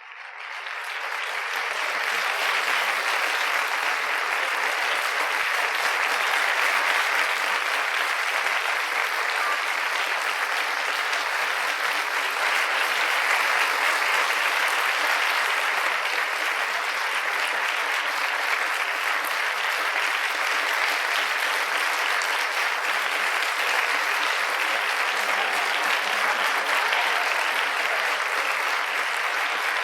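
Audience applauding, fading in over the first couple of seconds and then holding steady as dense, continuous clapping.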